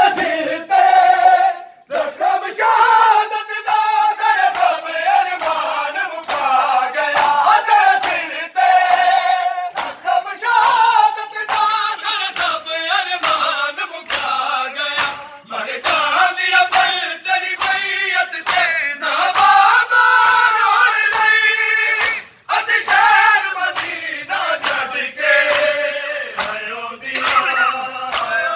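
A group of mourners chanting a nauha lament together, with the steady rhythm of matam chest-beating slaps. The chant pauses briefly twice between lines.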